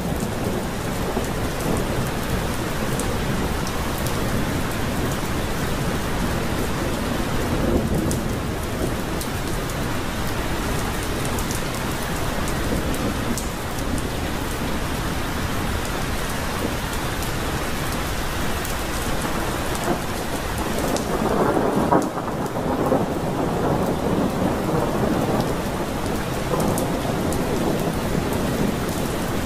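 Heavy rain pouring steadily, with thunder rumbling under it; the storm grows louder for a couple of seconds about three-quarters of the way through.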